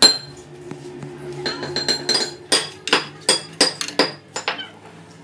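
Sharp metal-on-metal clinks that ring like struck steel, from a lathe's four-jaw chuck holding a truck axle hub while it is being centred. One comes right at the start, then a run of about eight at roughly three a second from about a second and a half in.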